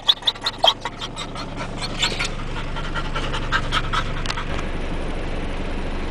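Dog panting fast with its tongue out, about five or six breaths a second, the strokes fading over the first couple of seconds. About halfway through, a steady low hum of the car comes up.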